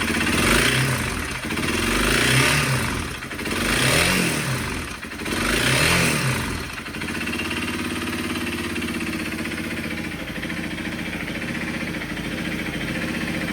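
Honda CRF250L's single-cylinder four-stroke engine is blipped four times, the pitch rising and falling each time, then settles into a steady idle. It carries the abnormal engine noise the owner is chasing, which a replacement used cylinder and piston have barely changed.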